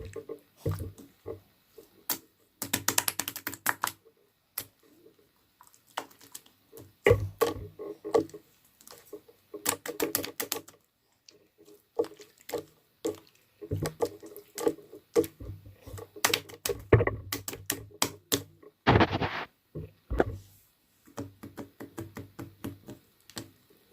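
Slime being squeezed and worked by hand, making clusters of rapid crackling clicks and pops with short pauses between them.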